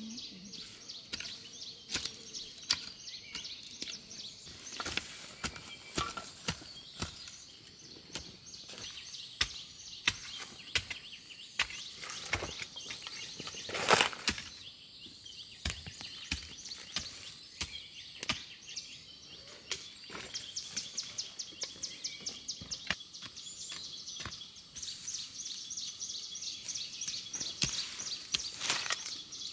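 A hoe chopping into burnt, ashy hillside soil, irregular knocks one after another, with one louder strike near the middle. High bird chirping runs underneath, becoming fast even runs of chirps in the second half.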